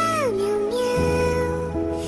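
A slow, gentle melody voiced in pitched cat meows over soft sustained chords. One note glides down early on and the next is held, while the accompanying chords change twice.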